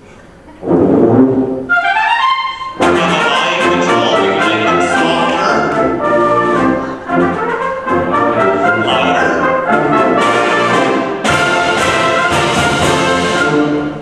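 Concert wind band playing, brass prominent: a loud entry about a second in, a quick rising run of notes, then the full band playing until it breaks off just before the end.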